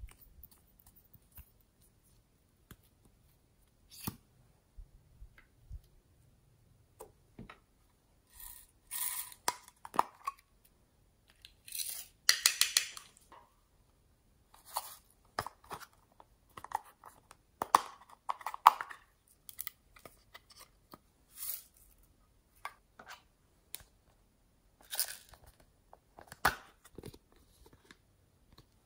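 Small plastic containers being handled and opened: scattered clicks and snaps of a lip-tint tube's cap and plastic cases, with short crackly rattling and rustling bursts, the loudest about halfway through.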